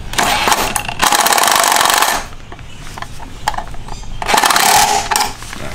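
Cordless impact driver hammering a bolt down tight on a stern transducer mounting bracket, run in short bursts, the two longest about a second each.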